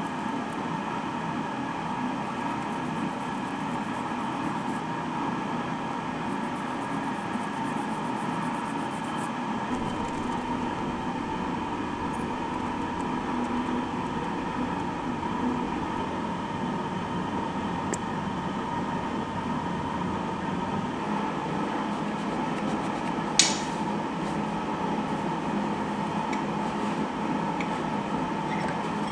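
A machine running steadily with an even hum, and one sharp click about three-quarters of the way through.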